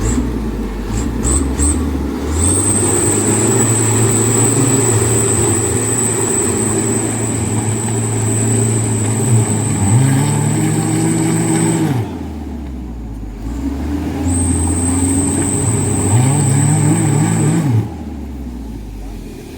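Heavily loaded truck's diesel engine working hard through mud, revving up about ten seconds in and again near the end, each time dropping back abruptly. A steady high whistle sounds over the engine while it is under load.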